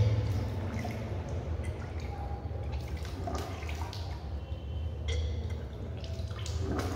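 Water gushing and dripping from a person's mouth as she regurgitates it during kunjal kriya, the yogic water-vomiting cleanse, pushing her fingers down her throat to bring it up. It is heaviest at the start, then comes in smaller splashes and drips, over a steady low hum.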